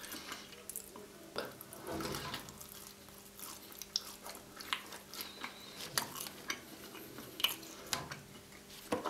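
Close-miked chewing of a soft dessert pizza slice spread with Nutella and topped with strawberries and marshmallow: quiet, wet mouth clicks and smacks at irregular intervals.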